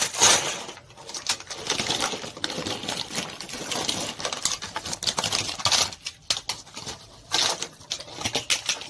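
A toy box and its packaging being opened by hand: irregular crinkling and rustling with many quick clicks and taps.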